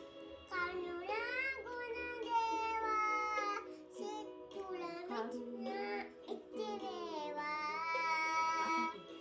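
A young girl singing a Sinhala Buddhist devotional song (bathi gee) unaccompanied, in long held, slightly wavering notes with short breaks between phrases.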